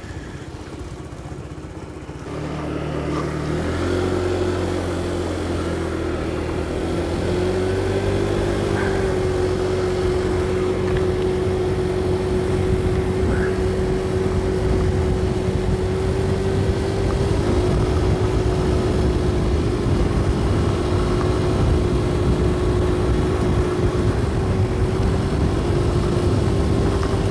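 Motorcycle engine picked up by a helmet-mounted mic, pulling away and rising through the gears over the first few seconds, then running steadily at riding speed with wind noise.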